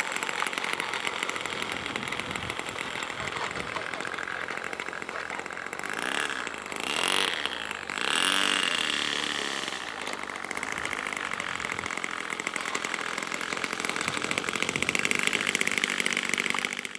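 Model airplane's O.S. 30 two-stroke glow engine running at low throttle as the plane taxis, with a buzzy, chainsaw-like tone. About seven seconds in its pitch rises and falls, and it grows louder near the end as the plane comes closer.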